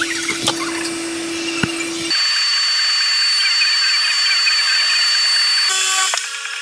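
Power drill running against a ceiling as a hole is cut to reach a bee nest. A steady hum with a few sharp ticks gives way abruptly, about two seconds in, to a thinner, higher whine, which changes again near the end.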